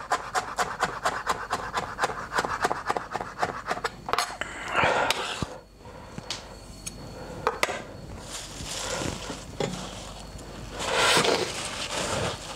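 Chef's knife chopping dill on a cutting board in quick, even strokes, about five a second, stopping about four seconds in. Then a brief scrape as the chopped herb is pushed off the board, a few single knocks, and a paper towel rustling as it is unwrapped from parsley.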